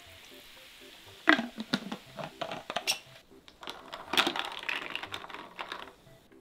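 Ice cubes clinking against a tall glass as a long bar spoon is dipped into a fizzy highball and stirred: a few sharp clinks about a second in, then a quicker run of rattling clinks through the middle to near the end.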